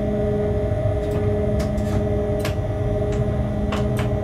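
Locomotive cab noise while running along the line: a steady rumble with a steady hum, and about half a dozen short, sharp clicks scattered through it.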